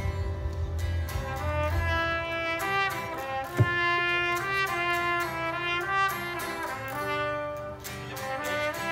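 A trumpet plays a melody over strummed acoustic guitar in the instrumental break of a folk song. A single sharp thump sounds about three and a half seconds in.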